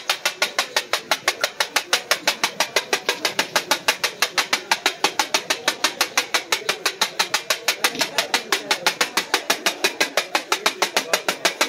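Pair of flat steel chopping blades clacking rapidly against a steel tawa griddle, about six strikes a second in a steady rhythm, as chicken keema is chopped while it fries, with the hiss of frying oil underneath.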